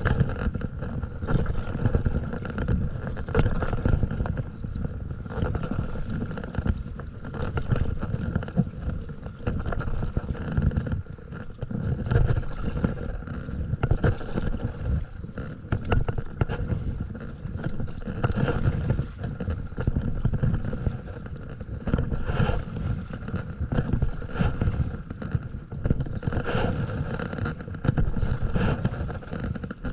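A paddle dipping and pulling through the water from a stand-up paddleboard, a stroke about every two seconds, over a steady low rumble of wind on the microphone.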